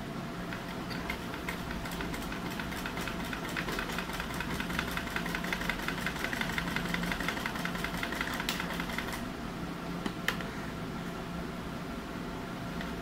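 Old black domestic sewing machine stitching a seam, its needle mechanism clattering in a fast, even rhythm that stops about nine seconds in, followed by a couple of sharp clicks.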